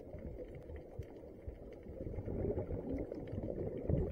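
Muffled underwater rumble and crackle of a scuba diver breathing through a regulator, with exhaled bubbles, heard through an underwater camera housing. It grows louder from about halfway through.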